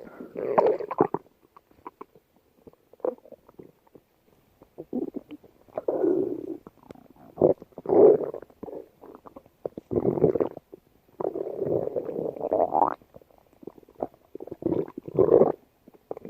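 Hungry, empty stomach growling and gurgling in a run of irregular rumbles. The longest, about eleven seconds in, lasts nearly two seconds and rises in pitch at its end.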